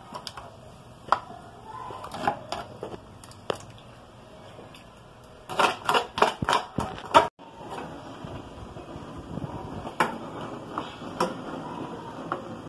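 A spoon scraping and knocking against a plastic tray and a stainless steel pot as a wet marinade is tipped out and stirred in. A burst of rapid scraping and clatter comes a little past the middle, and single clinks follow later.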